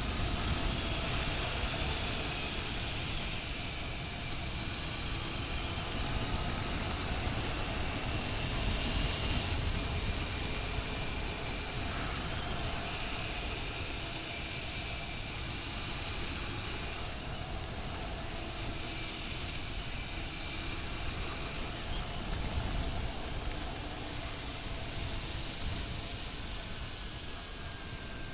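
Motorcycle engine running while riding at steady speed, its pitch drifting gently up and down under a constant rush of wind noise.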